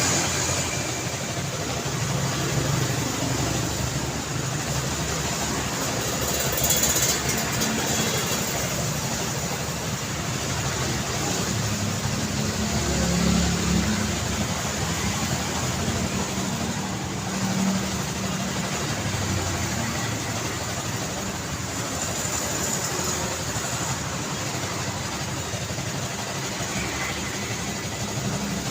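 City road traffic: a continuous wash of car engines and tyre noise, with a few vehicles swelling louder as they pass.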